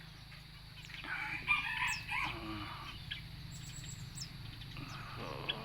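A rooster crowing, loudest from about one to two seconds in, with small birds chirping briefly now and then.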